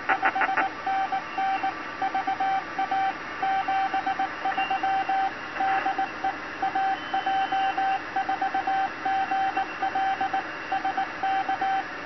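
Morse code (CW) sent at high speed, faster than 20 words per minute, as a single steady-pitch tone keyed on and off in short and long elements by an Arduino Nano automated keyer playing back a stored reply message.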